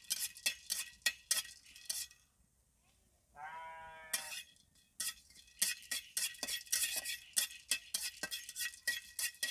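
Spatula scraping and clinking against a metal kadai in quick repeated strokes as cardamom pods are dry-roasted. The strokes pause about two seconds in. During the pause a single bleat about a second long sounds, and the strokes then resume, faster and denser.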